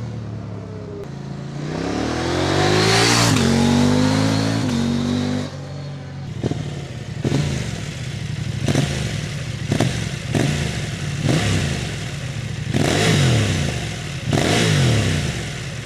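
KTM 890 Adventure parallel-twin engine through a Black Widow hexagonal stainless exhaust. The bike passes with its pitch falling away, then accelerates with a rising note. After a sudden change about five seconds in comes a run of short throttle bursts, each rising and dropping back, roughly one a second.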